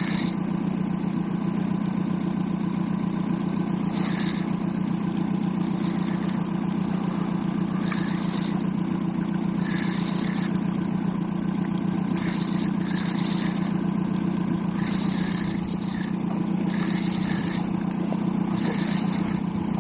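A boat's motor running steadily at trolling speed, an even low hum, with short higher-pitched sounds coming and going over it.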